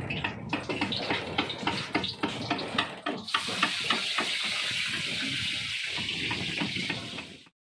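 Sea water splashing and rushing against a boat's hull: quick irregular splashes for about the first three seconds, then a steady rushing hiss that cuts off suddenly near the end.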